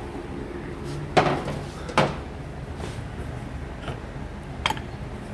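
Steel hand tools clanking: three sharp metallic clinks, a little over a second in, at about two seconds and near the end, as a socket and the rotor holder plate are handled on the motorcycle engine's flywheel rotor.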